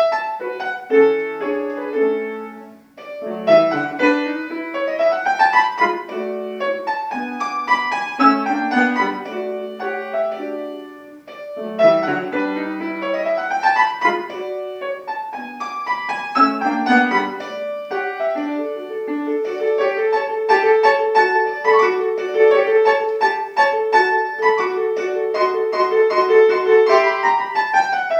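Solo acoustic piano playing a classical piece, with quick rising runs early on, then a long stretch of rapidly repeated notes in the middle of the keyboard from about two-thirds of the way in.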